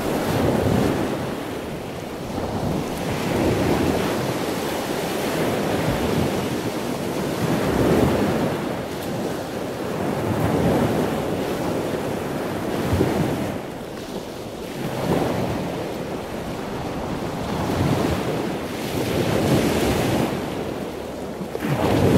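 Rushing, churning water of a cruise ship's wake, with wind buffeting the microphone. The rush swells and eases every few seconds.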